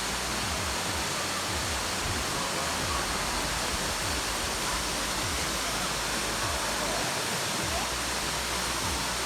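Steady rush of a waterfall pouring into its pool, an even noise without breaks.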